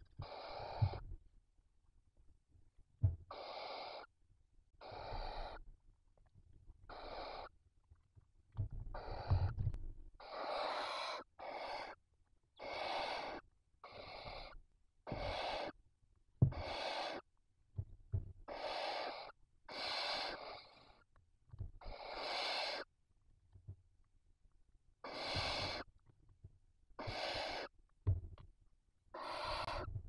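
Barn owl chicks giving their rasping hiss, the 'snoring' food-begging call, repeated every one to two seconds, each hiss under a second long, with two voices sometimes overlapping. A few short knocks are the loudest moments among them.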